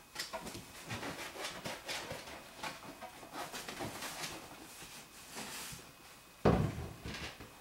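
Six-week-old golden retriever puppies playing among plastic toys and climbing equipment: a steady scatter of light clicks, taps and knocks from paws, claws and toys, with one heavy thump near the end.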